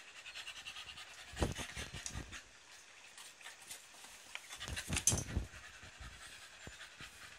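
Rapid, rhythmic panting close to the microphone, in two short runs: one about a second and a half in, and a louder one about five seconds in.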